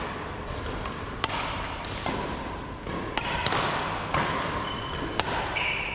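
Badminton rackets striking a shuttlecock in a rally: sharp, irregular hits over the steady echo of a large hall, with a couple of short squeaks near the end.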